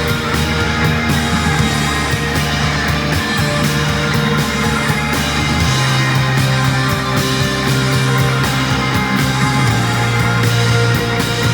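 A rock band plays an instrumental piece live on two electric guitars, bass, drums and keyboard. The bass holds long notes and moves to a new one about six seconds in and again near the end, under steady cymbal strokes.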